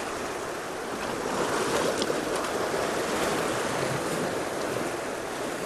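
Sea surf washing against a rocky shore, a steady rush with some wind that swells a little about a second in and eases near the end.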